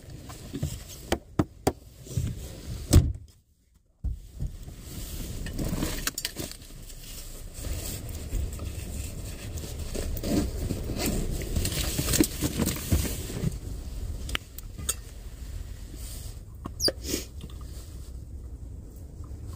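Scattered clicks, taps and light knocks of small items being handled, over a low steady rumble. The sound drops briefly to near silence about three and a half seconds in.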